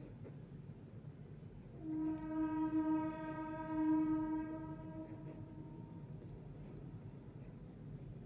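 A single steady horn-like tone starts about two seconds in, holds for roughly four seconds and fades out, over a constant low hum.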